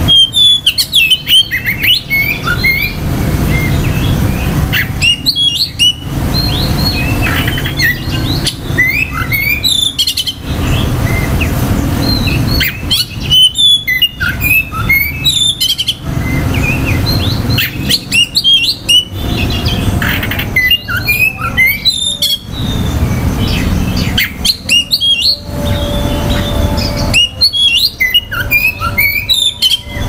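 Male oriental magpie-robin singing: bursts of quick, varied whistles and chirps, repeated every few seconds, over a steady low rumble.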